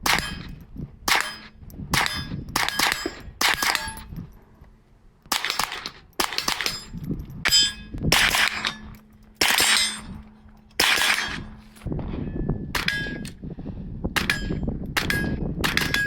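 AK-pattern rifle fired one shot at a time, about sixteen shots at an uneven pace with two short pauses, each shot followed by a brief metallic ring.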